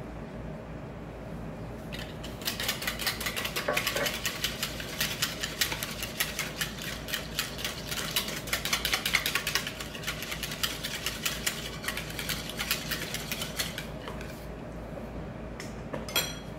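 Wire whisk beating a liquid in a bowl: fast, even clicking of the wires against the bowl for about twelve seconds. A single sharp knock follows near the end.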